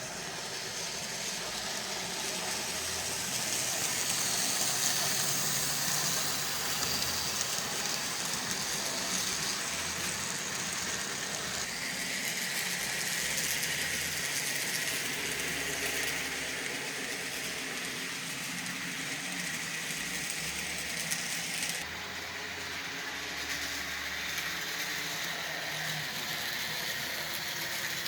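N scale Bachmann Spectrum model diesel locomotives running on track: a steady whir of small electric motors and gears with a light rattle of wheels on the rails. The pitch of the whir shifts about 12 seconds in, and the sound changes again near 22 seconds.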